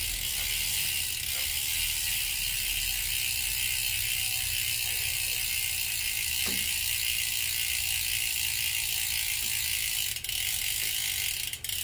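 Road bike's rear freehub clicking steadily as a rapid ratcheting buzz while the rear wheel freewheels on the work stand. The buzz breaks off briefly twice near the end.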